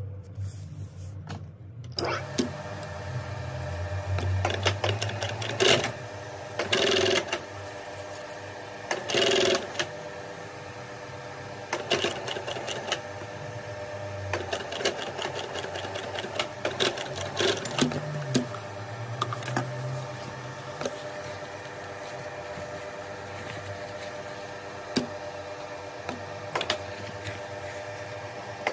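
Industrial sewing machine stitching leatherette backed with fabric. A steady mechanical hum comes in about two seconds in, with several louder stretches of stitching.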